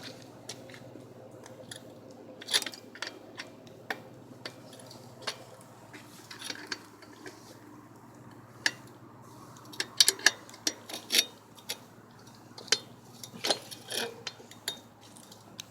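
Irregular metallic clicks and knocks from hands and tools working on a BMX wheel and tire, coming in quick clusters about ten seconds in and again near the end.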